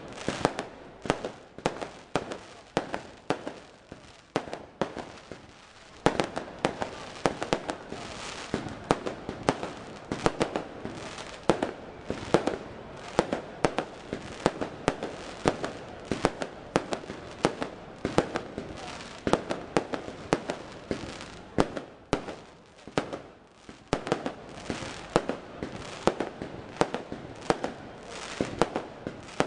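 Fireworks display: a rapid, unbroken series of bangs from bursting shells, several a second, growing denser from about six seconds in.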